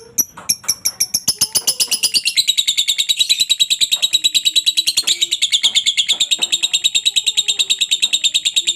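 Lovebird giving its 'ngekek' song: a long, rapid string of high chattering notes, about ten a second. It starts as a few separate notes and runs together into one continuous chatter about a second in.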